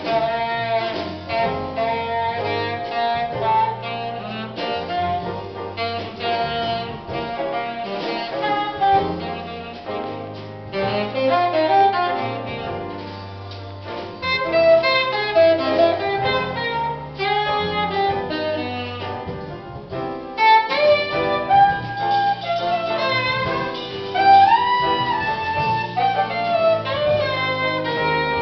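Live jazz quartet: a saxophone plays a flowing melodic line with slides and bends, over grand piano, upright double bass and a drum kit.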